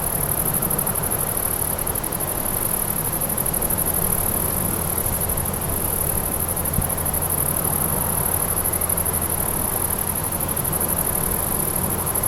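Grasshoppers stridulating: a continuous, very high-pitched, finely pulsing buzz, with a steady low rumble underneath.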